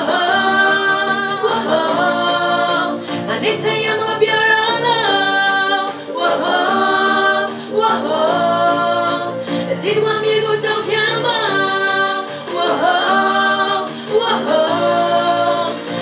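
A woman singing a pop song with held, sliding notes over a backing track with a bass line and a steady beat.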